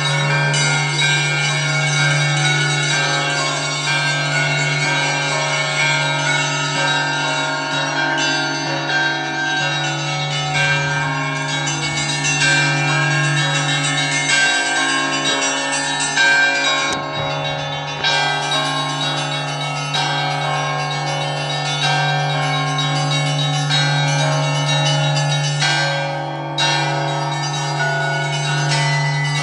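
Russian Orthodox church bells ringing: many bells of different pitches struck together in a continuous peal, over a deep steady tone.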